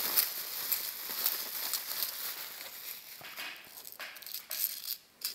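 Plastic bubble wrap crinkling and crackling as it is handled and pulled off jewelry, thinning out after about three seconds. A few light clicks and knocks follow as the pieces of metal jewelry are set down on the table.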